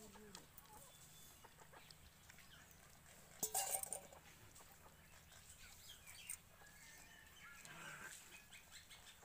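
Puppies eating rice off a steel plate: faint chewing and small clicks, with faint bird-like chirping calls and one louder burst about three and a half seconds in.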